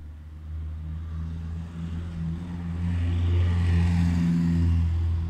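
A motor vehicle engine running close by as a steady low hum. It grows louder from about three seconds in, with a rising hiss of tyres on the road, and eases off near the end.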